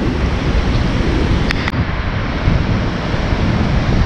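Wind on the microphone over the steady rush of rough sea surf breaking on the rocks, with two short clicks about a second and a half in.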